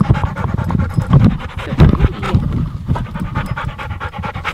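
A dog panting loudly in rapid, even breaths, several a second.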